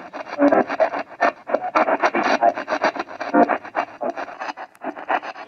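AM/FM radio used as a spirit box, sweeping through the band: a rapid, choppy stream of static and broken fragments of broadcast sound, with a brief dip near the end.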